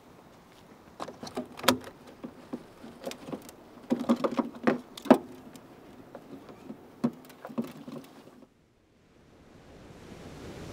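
Irregular clattering, clicking and knocking of objects being handled and rummaged through, with a few short squeaks, cutting off suddenly about eight and a half seconds in. Surf on a beach then fades in near the end.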